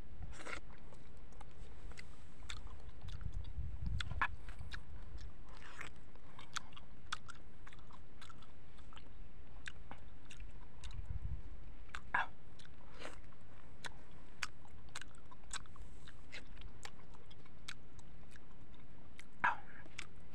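Close mouth sounds of eating a soft, ripe mango: biting into and sucking the flesh, with many short wet smacks and clicks of chewing and a few louder ones about four, twelve and nineteen seconds in. A low rumble comes and goes twice, around three to four seconds in and again around eleven.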